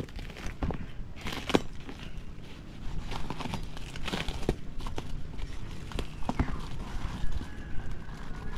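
Plastic cling wrap crinkling and tearing as a kitchen knife slits open a wrapped bundle, with irregular sharp crackles.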